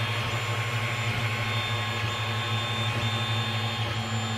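TEVO Tornado 3D printer running while printing: a steady hum from its cooling fans, with high stepper-motor whine tones that cut in and change every second or so as the print head moves.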